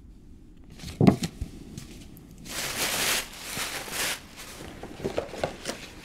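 Tissue paper rustling and crinkling for a second or two as it is pulled out of a gift bag. A single knock comes about a second in, and a few light handling clicks near the end.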